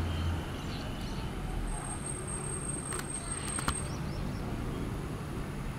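Steady outdoor background noise, with a few sharp clicks about three seconds in.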